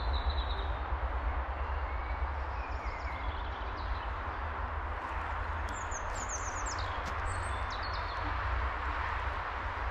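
Steady hum of distant road traffic, with a few bird chirps and calls on top, a cluster of them about six to seven seconds in.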